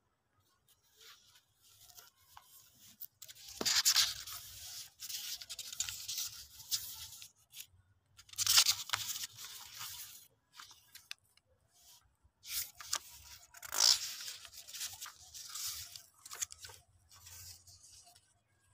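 Paper being handled: photo prints and file pages rustled, slid and crinkled in three bouts, each starting with a sharp crackle.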